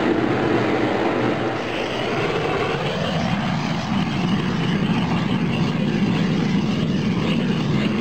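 Propane torch burning with a steady rushing flame, played onto a freshly laid, damp ganister furnace pedestal to dry it. Its sound turns deeper about three seconds in.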